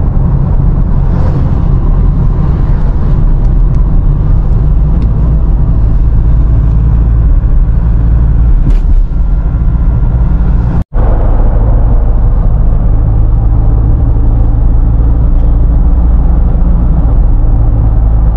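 Steady road and engine rumble inside a moving pickup's cabin at expressway speed, heavy in the low end. The sound cuts out for an instant about eleven seconds in.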